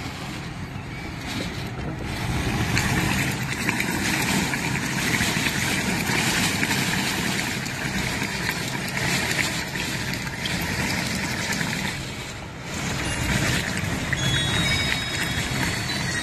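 Cyclone-force wind and driving rain, a steady rush of noise that swells and eases in gusts, with a brief lull about twelve seconds in.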